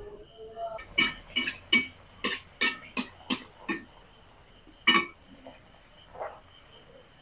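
Sharp metallic taps from a metal utensil knocking on a kadai of hot oil where puris are frying, a quick run of about three a second, then one more a little over a second later.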